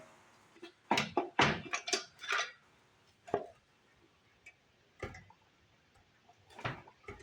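Metal tools and engine parts knocking and clicking during a small-engine teardown: a quick cluster of knocks in the first couple of seconds, then a few single clicks spaced a second or two apart.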